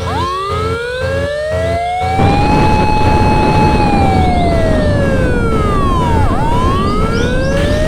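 A slow siren-like wail that rises, holds, sinks and rises again, over a railroad crossing's repeating warning bell that stops about two seconds in. As the bell stops, a loud rushing noise of flame jets starts and stays under the wail.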